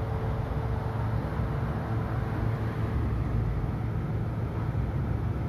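Maspion MV-300 NEX wall exhaust fan running in exhaust mode: a steady rush of air over a low motor hum, with a faint steady tone above it. The owner finds it runs rather slowly in this mode and has no idea why.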